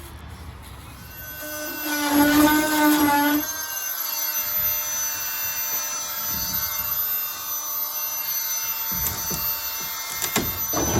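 Circular saw with a new blade cutting through a wooden shed wall. It comes up to speed about a second in, its pitch wavers under load for a couple of seconds, then it settles into a steady whine through the cut, with a few sharp clicks near the end.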